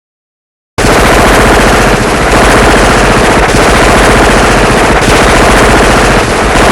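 Film sound effect of a machine gun firing a long, very rapid continuous burst, starting about a second in after silence.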